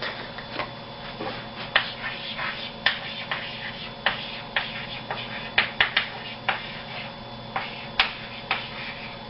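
Chalk writing on a blackboard: irregular sharp taps and short strokes as the words are written.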